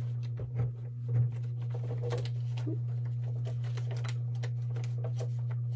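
Scotch thermal laminator running with a steady low hum, while a plastic laminating pouch is handled and fed into its rollers with light clicks and rustles.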